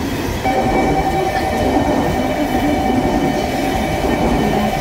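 KTX high-speed train rolling past alongside the platform: a steady rumble of wheels on rail, with a steady high whine that sets in about half a second in and stops near the end.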